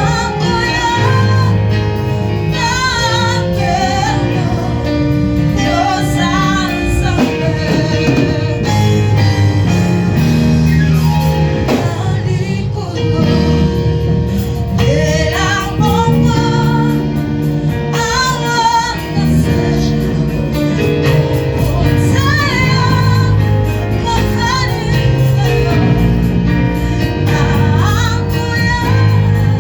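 Gospel song: a woman singing with wavering, vibrato-laden held notes over a steady instrumental backing with a sustained bass line.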